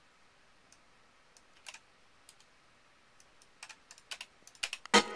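Computer keyboard keystrokes and clicks, scattered at first and coming faster toward the end, with one louder knock just before the end.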